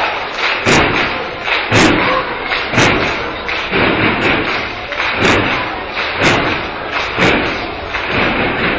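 Steady rhythmic thuds, about one a second, over the murmur of a large crowd.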